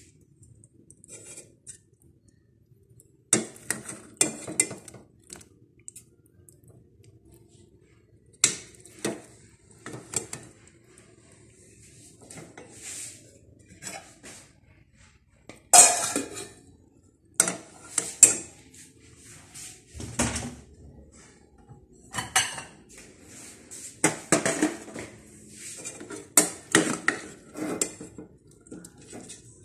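Metal tongs clinking and scraping against a stainless steel pot as cooked food is stirred and lifted out. The clatter comes in irregular bursts of a second or two with short quiet gaps, loudest about halfway through.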